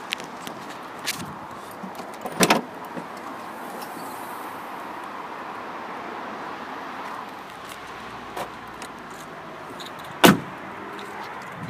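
A 2013 Vauxhall Zafira's tailgate and doors being worked by hand: a sharp double clunk of a latch about two and a half seconds in, a few small clicks, and a loud door slam near the end, over steady outdoor background noise.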